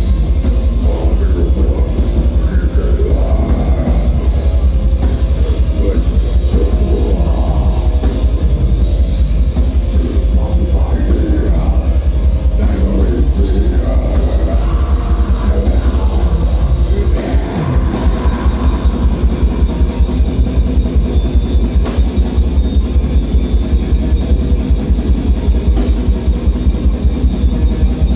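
Heavy metal band playing live: distorted guitars and bass over drums with a fast, even kick-drum pulse. About two-thirds of the way through, the music switches to a new, more regular riff.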